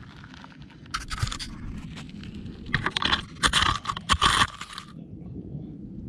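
Scraping and crunching on dry, gravelly dirt close by, in irregular bursts starting about a second in and strongest between about three and four and a half seconds.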